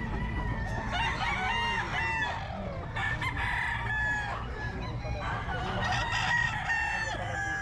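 Several gamecocks crowing in overlapping calls, with bouts about a second in, around three seconds in and around six seconds in, over a steady low rumble.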